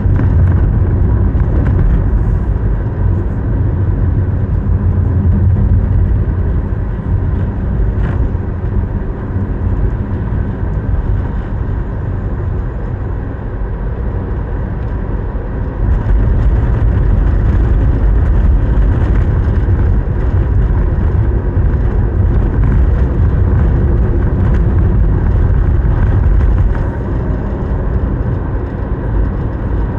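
A car driving along the road: a steady low rumble of road and engine noise. It grows louder about halfway through and eases near the end.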